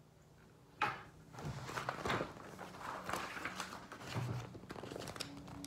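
Pages of a large picture book being handled and turned: paper rustling and crinkling with small taps, beginning with a sharp tap about a second in.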